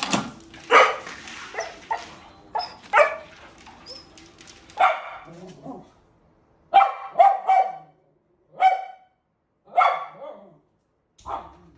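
Dogs barking: several sharp barks in the first few seconds. Then a curly, poodle-type dog barks at its own reflection in a mirror, three quick barks together, then single barks about a second apart.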